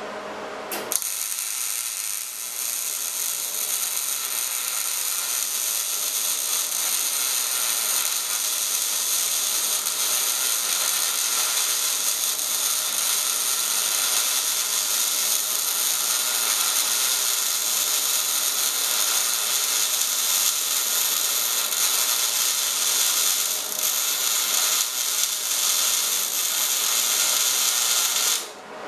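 MIG welding arc running steadily on steel plate, a dense crackle that starts about a second in and cuts off just before the end.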